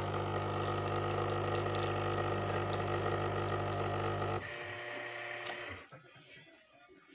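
Krups EA8010 espresso machine's pump running with a steady hum while brewing espresso, cutting out about four seconds in; a softer hum carries on for about a second more, then it goes quiet.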